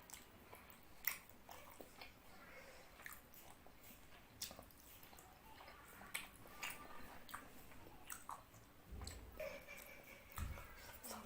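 Close-up mouth sounds of eating fish curry with rice: wet chewing and smacking, with scattered small clicks.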